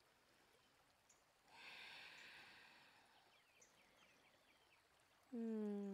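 Near silence, broken about one and a half seconds in by a soft, drawn-out breath out, then a few faint high chirps, and a short hummed voice sound near the end.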